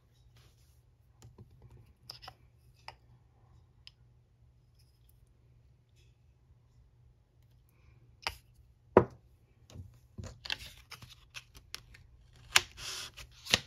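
Small handling sounds of nail-stamping tools: light clicks and taps, with a sharp click about nine seconds in as the loudest, then short scraping rasps near the end as stamping polish is scraped across the stamping plate.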